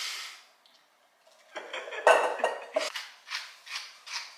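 Kitchen utensils and dishes clinking and scraping during food prep. A short hiss comes at the start, a cluttered burst of clatter follows after about a second and a half, and near the end there is a run of short scratchy strokes, about two or three a second.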